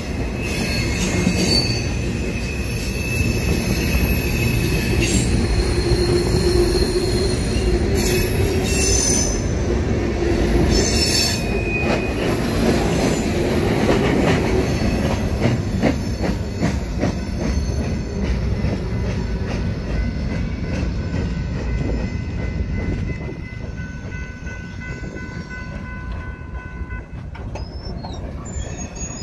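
Freight cars of a slow local freight train rolling past, steel wheels squealing and clattering on the rails. The sound falls off about three-quarters of the way through as the last cars clear.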